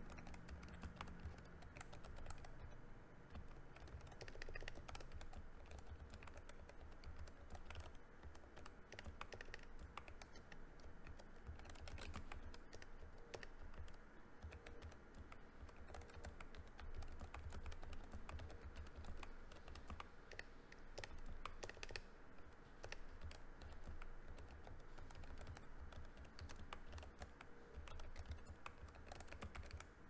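Continuous fast typing on a Keychron K3 low-profile mechanical keyboard with hand-lubed brown tactile switches: a quiet patter of keystrokes, each with a low bump picked up through the desk.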